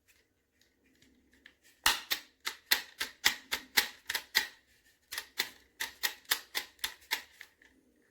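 A run of sharp clicks or taps, about four a second, with a short break in the middle, like typing or clacking keys.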